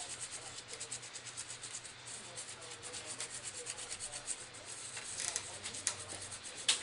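Fast, repeated scrubbing strokes on a laptop motherboard, cleaning off the flux residue left around the video chip after a reflow, several strokes a second with a few harder ones near the end.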